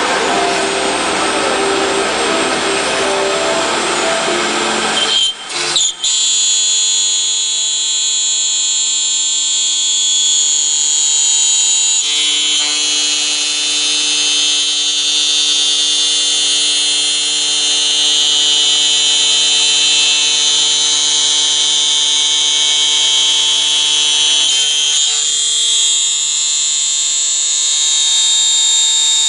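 High-speed electric spindle of a CNC copy router milling aluminium window profile: a loud rushing cutting noise, then after a short break about five seconds in, a steady high-pitched whine.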